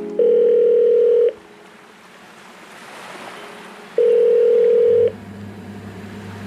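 Telephone ringback tone: a steady low tone sounds for about a second, twice, about four seconds apart, with faint hiss between. It is the sound of an outgoing call ringing on the line, not yet answered.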